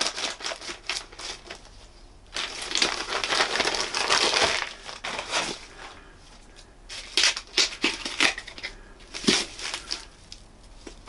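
Plastic postal mailer bag crinkling and rustling as it is cut open with scissors and handled, then scissors snipping into a cardboard book wrapper in short clicks near the end.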